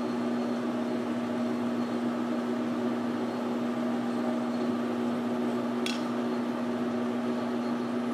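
Precision Matthews 12x36 metal lathe running steadily at 135 RPM with an even hum while a high-speed-steel parting blade cuts into a steel bar. A single sharp tick sounds about six seconds in.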